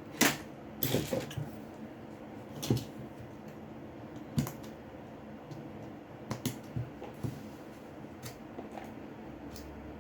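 Irregular light clicks and taps of small tools and plastic and metal parts being handled during the disassembly of a Samsung Galaxy J6 smartphone, with the sharpest click right at the start and the rest spaced a second or two apart.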